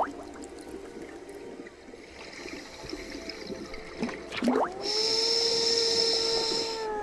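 Scuba regulator breathing, heard underwater: exhaled bubbles gurgle for about four seconds. Then, about five seconds in, an inhalation through the regulator starts as a hiss with a humming tone that holds steady and begins to fall near the end.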